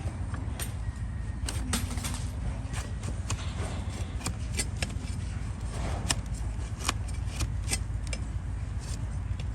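Donkey hoof being trimmed: irregular sharp clicks and cracks of the blade cutting through hoof horn, with some scraping between them, over a steady low rumble. The hoof is overgrown and rolled.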